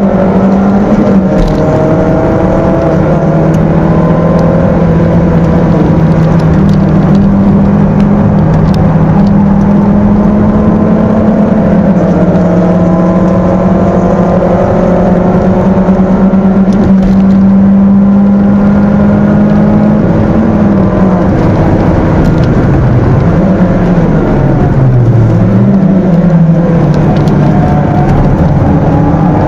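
A stock Peugeot 206's 1.6-litre four-cylinder engine, heard from inside the cabin, running hard at high revs around a circuit. Its pitch holds steady for long stretches, then falls and rises a few times near the end as the revs drop and pick back up.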